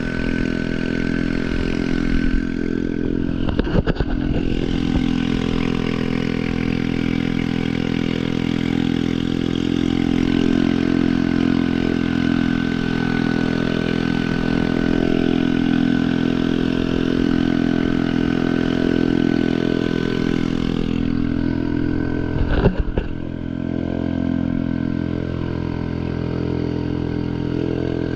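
Boat engine running at a steady speed over water, with a few brief knocks about two to four seconds in and again near the end.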